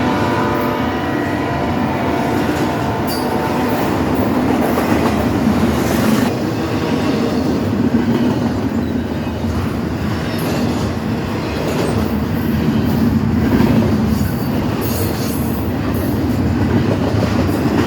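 Norfolk Southern locomotive air horn sounding and cutting off about three to four seconds in. Then the freight cars roll past steadily, the wheels clicking sharply over the rail joints.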